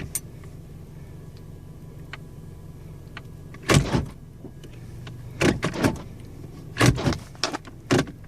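Automatic gear shifter in a 2013 Chevy Sonic clunking several times as the lever is moved out of park without pressing the knob's release button. The button is stuck in, so the shift interlock is not holding the lever. The idling engine hums steadily underneath.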